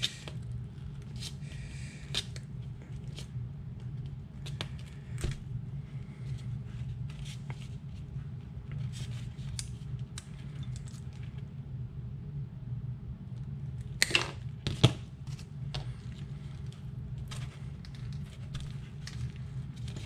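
Side cutters snipping through the 12-gauge leads of a lipo battery to cut off its Deans connector: a scattered series of clicks and crunching snips, the two loudest close together about fourteen seconds in.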